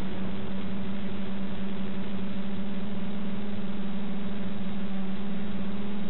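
Quadcopter's DJI E300 2212 motors and 9-inch propellers humming at a constant pitch under a steady hiss.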